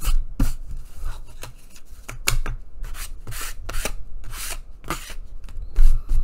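Short rubbing and scraping strokes of cereal-box cardboard panels being handled on a cutting mat, with a single heavy thump near the end.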